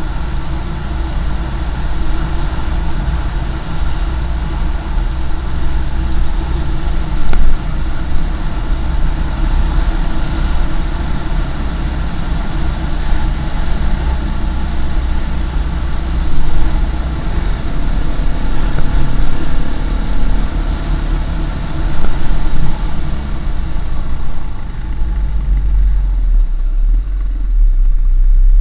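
Husqvarna SM510R supermoto's single-cylinder four-stroke engine running steadily under way, with heavy wind rumble on the microphone. Near the end the engine sound falls away as the bike slows to a stop sign.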